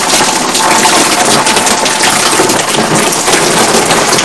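Water from a garden hose spraying onto the evaporator coil of a wall-mounted split AC indoor unit and splashing down, a steady rushing spatter, as the coil is washed.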